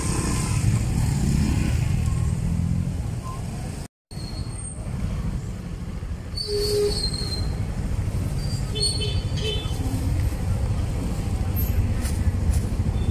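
Busy street-market ambience: a steady rumble of traffic and motorbike engines with scattered voices, cut off for an instant about four seconds in. A few short high squeaks follow after the cut.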